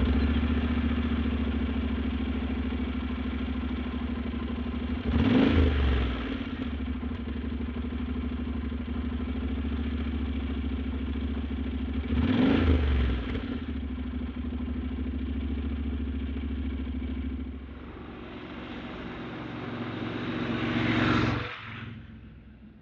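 Honda NC750X's parallel-twin engine idling with a low rumble just after starting. It is blipped in two short revs, about five and about twelve seconds in. Near the end it rises more slowly once more, then drops off and fades.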